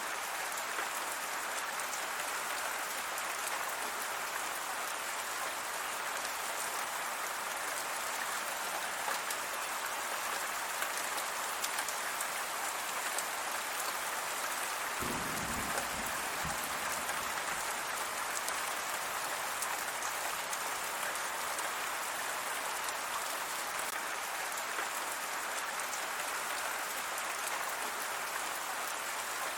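Steady rain falling: an even hiss of many drops, with a brief low rumble about halfway through.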